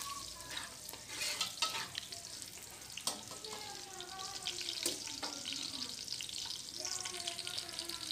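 Chopped ginger and garlic sizzling in hot oil in a metal kadai, browning, with a slotted spatula stirring and knocking against the pan now and then.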